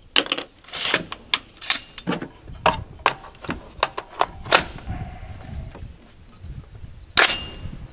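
Handling of cartridges and rifle parts: a quick run of sharp clicks and clacks, with one louder metallic clack near the end that rings briefly.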